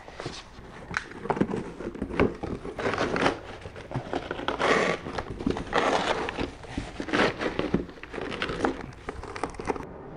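Cardboard box flaps and packing paper being handled: irregular rustling, crinkling and scraping with scattered clicks, the paper being pulled open near the end.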